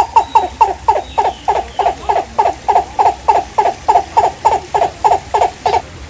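Great blue turaco calling: a long run of loud, evenly spaced notes, about three or four a second, slowing slightly and stopping shortly before the end.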